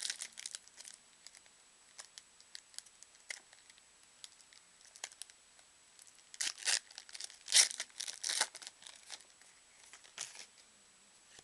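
A foil trading-card pack wrapper being torn open and crinkled by hand, in irregular bursts of crackling rustle, loudest in a run about six to eight and a half seconds in.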